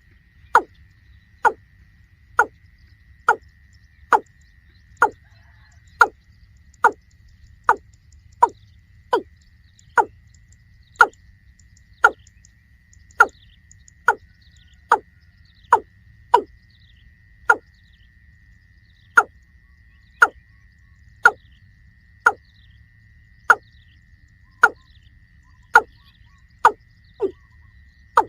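Watercock calling: a long series of short, sharp 'kok' notes, each falling quickly in pitch, about one a second. A faint steady high whine sits underneath.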